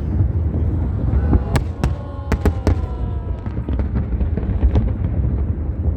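Aerial fireworks display: a continuous deep rumble of shell bursts with many sharp cracks, densest about a second and a half to three seconds in, and a few faint falling whistles in the first half.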